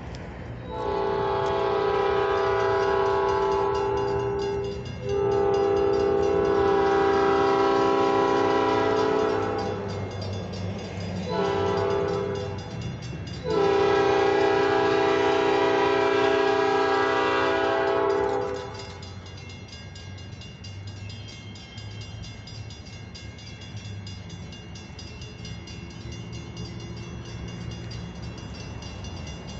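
Locomotive horn sounding the grade-crossing signal as the train approaches: two long blasts, a short one and a final long one. After the horn stops, the train's low, steady rumble grows nearer.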